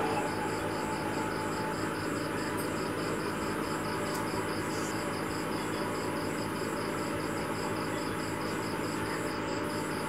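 Steady hum and hiss with a fast, even, high-pitched pulsing of about four pulses a second.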